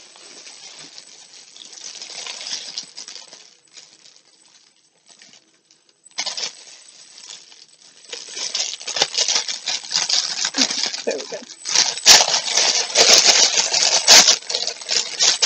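Clear plastic packaging crinkling and crackling as it is handled and pulled open. It is quiet at first with a brief lull, then grows much louder in the second half with sharp crackles.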